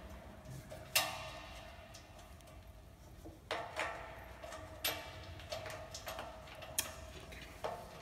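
Small metal parts clicking and tapping against a plotter's metal stand leg while a part is fitted by hand: about half a dozen sharp clicks, each with a short metallic ring.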